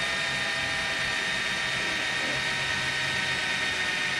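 Cordless drill running at steady speed with a high whine, its bit drilling a hole into a bicycle frame tube.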